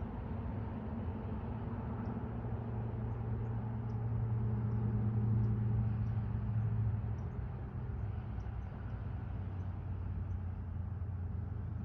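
A steady low vehicle engine drone with a haze of road noise. It swells about four seconds in and eases back a few seconds later.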